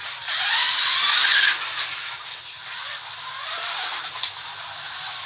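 Tamiya electric RC car driving: its electric motor whines up and down in pitch with tyre scrubbing, loudest in a burst over the first second and a half, then quieter with further rises and falls in the whine.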